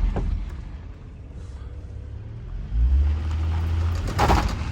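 Inside the cabin of a 2009 Saturn Vue during a sharp left turn: low road and engine rumble that swells about three seconds in, with clicking from the left front CV axle, the sign of a worn left axle. A short, louder rustling burst comes near the end.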